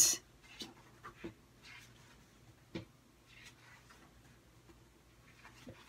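Pages of a hardcover children's book being turned by hand: faint paper rustles and light taps, with a sharper tap at the very start.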